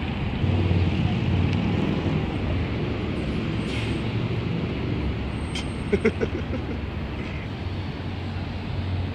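Street traffic with a city transit bus's engine running as it passes, over a steady rumble of cars. About six seconds in there is a brief sharp sound.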